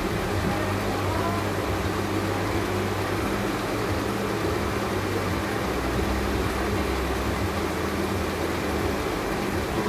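Steady mechanical hum with a continuous low drone and an even background noise.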